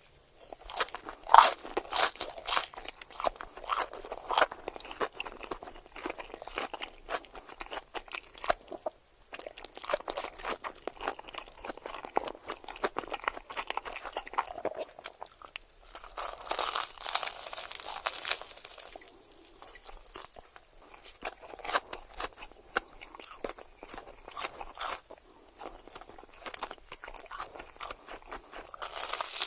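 Close-miked eating of crunchy food: crisp crackling bites and chewing in bursts, with short pauses between them.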